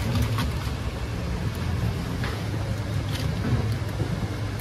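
A steady low machine-like hum, with scattered light clicks and clinks over it.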